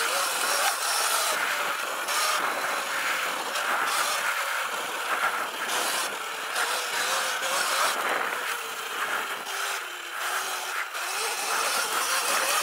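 Sur-Ron Light Bee electric dirt bike with a KO Moto motor and controller being ridden on a dirt trail: a faint whine from the motor that wavers slightly in pitch, under a steady rushing noise from the ride.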